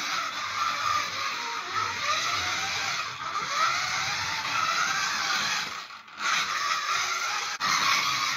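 Scalextric slot car running laps on plastic track: its small electric motor whines, rising and falling in pitch with speed, over the rattle of the car in the slot. The sound dips briefly about six seconds in.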